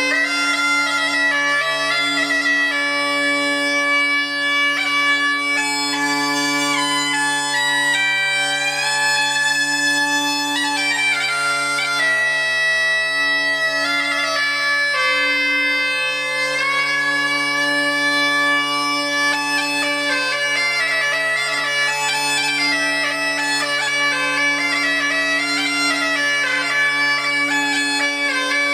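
Bagpipes playing a melody on the chanter over two steady, sustained drones, with no break.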